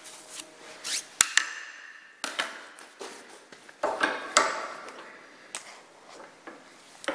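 Metal handling sounds at a bench vise: a sharp clink about a second in, then scattered knocks and short scrapes as the steel hammer head in the copper-padded jaws and a wrench are handled.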